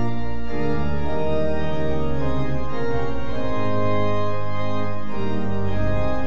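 Organ music: sustained, held chords that change every second or so.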